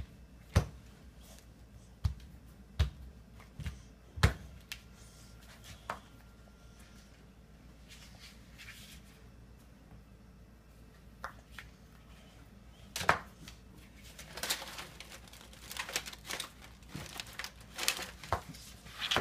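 A plastic spatula tapping and pressing on a plastic cutting board, six or so sharp knocks in the first six seconds. From about 13 s on comes a busier stretch of crinkling and rustling as the aluminium foil and the play-dough on it are handled.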